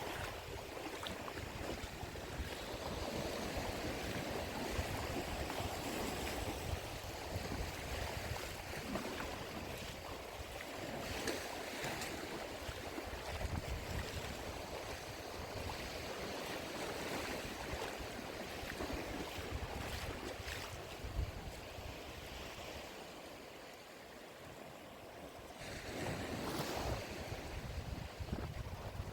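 Wind buffeting the microphone over gentle surf on the shore, easing for a moment near the end before picking up again.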